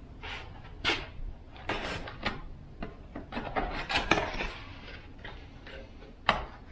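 Small cardboard box being opened and handled: flaps and packing rustling and scraping, with several sharper knocks, the sharpest near the end.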